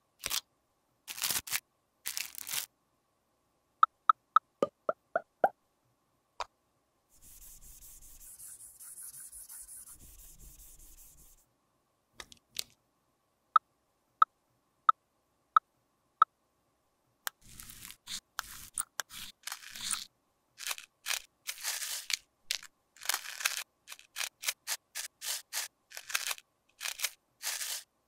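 Close-up handling of cracked pressed eyeshadow and its compact. It opens with a few crackles, like plastic wrapping, followed by two short rows of light clicks and a steady hiss lasting about four seconds. From about two-thirds of the way in comes a long run of quick scratchy, crunchy strokes, as the pressed powder is scraped and crushed.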